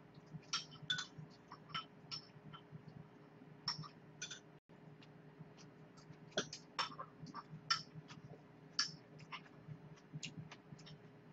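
Faint eating sounds: irregular short clicks from chewing and a metal spoon against a ceramic rice bowl, over a low steady hum.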